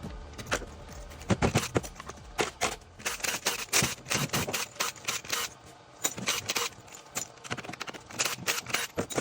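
Claw hammer and screwdriver working a seal out of a 700R4 transmission: a quick, irregular run of sharp metallic taps and clicks with some scraping.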